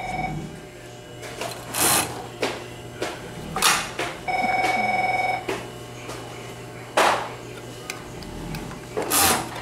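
The motor of an industrial Juki MO-2543N overlock hums steadily while cloth is handled, with a few short rustles. About four seconds in comes a warbling ringing tone that lasts about a second and is the loudest sound here; a brief trace of the same tone is there at the very start.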